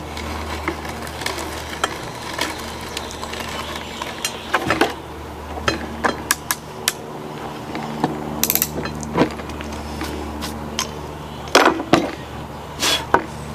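Vintage Pexto No. 112 ratcheting brace turning an auger bit into a wooden board to cut a countersink: irregular clicking and creaking from the brace and the cutting bit. A few louder knocks near the end as the brace is lifted out and tools are handled on the wooden table.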